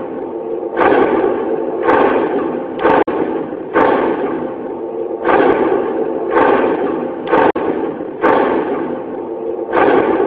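Loud soundtrack of heavy struck beats, about one every second or so, each ringing on with a sustained, tone-laden decay until the next hit.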